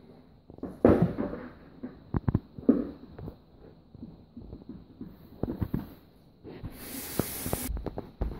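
Handling noise close to the microphone: scattered knocks and rubbing, loudest about a second in, with a short burst of hiss lasting about a second near the end.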